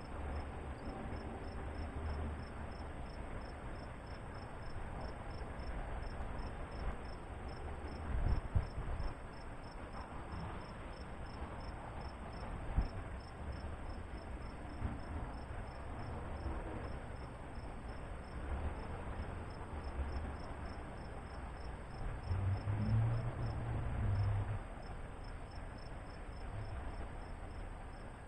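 Insects chirping in a high, steady, evenly repeating pulse, with a faint low rumble underneath that swells briefly about eight seconds in and again around twenty-three seconds in.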